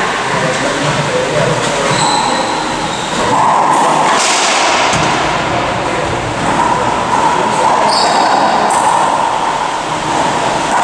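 Racquetball rally on an indoor court: the ball cracks off racquets and walls a few times over a loud, steady rushing noise. Short high squeaks from shoes on the wooden floor come about two seconds in and again near eight seconds.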